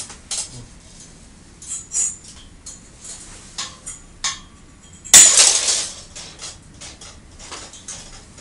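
Light metallic clicks and clinks of steel tension wire and pliers against a steel fence post, with one louder metallic rasp lasting about a second, a little past halfway.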